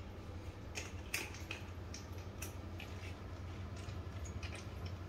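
Scattered light clicks and taps of the folding bike's metal parts as the handlebar stem is folded down and set beside the front wheel, over a steady low hum.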